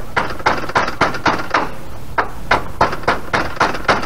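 Rapid, evenly spaced knocks, about three a second, from the RV awning's roller and hardware being worked on.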